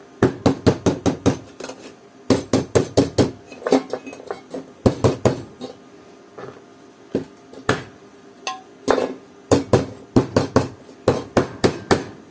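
A small hammer tapping the stacked steel E-I laminations of a small transformer core, knocking them in tight so the core will not vibrate. The light metallic strikes come in quick runs of about five or six a second, with short pauses between runs.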